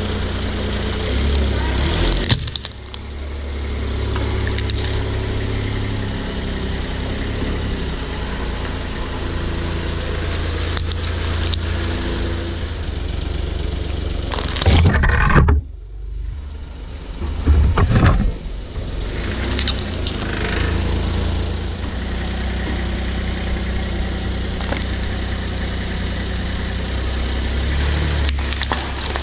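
A car engine idling while a slowly rolling tyre crushes small objects on concrete, with sudden cracks and crunches. There is a crack about two seconds in as a small green plastic speaker gives way, and loud crunching and popping around the middle as a foil spout pouch is flattened.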